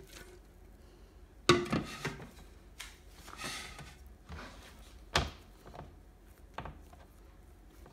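A few knocks and thuds of kitchen handling: dough lifted out of a plastic mixing bowl and pressed onto a plastic cutting board. The loudest knock comes about one and a half seconds in and another about five seconds in, with a short rustle between them.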